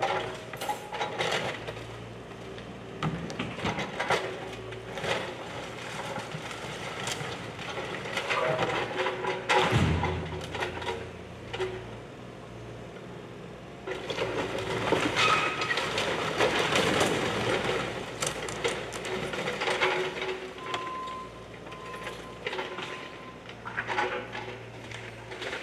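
Bobcat mini excavator's diesel engine running steadily while its bucket tears through a brick wall, with bricks and timber cracking, crashing and clattering down. A heavy crash comes about ten seconds in, and a long spell of falling debris follows a few seconds later.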